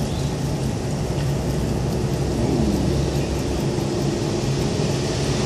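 Car driving along, heard from inside the cabin: a steady low engine hum with tyre and road noise.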